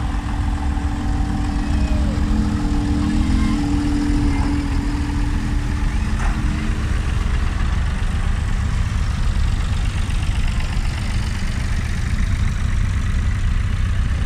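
Tractor engines running as tractors pull past one after another, a steady low rumble. A strong engine hum from one passing tractor holds through the first half and fades out about halfway through.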